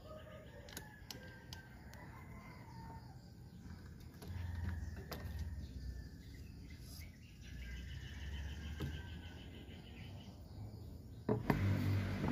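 Faint outdoor background with birds chirping, and scattered light metallic clicks as a hex key and a bicycle disc brake caliper are handled. Near the end a louder stretch of noise starts abruptly.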